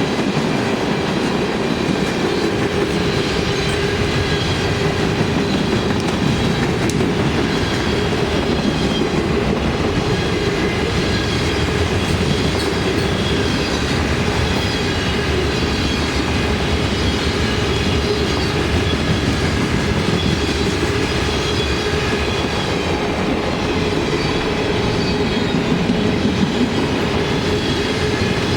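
Railroad cars of a passing train rolling by, a steady loud rumble and clatter of wheels on rail with a faint high wheel squeal over it.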